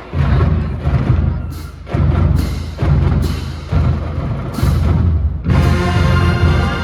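Marching band percussion: heavy bass-drum hits about once a second with cymbal crashes, then the band's horns come in with sustained notes near the end.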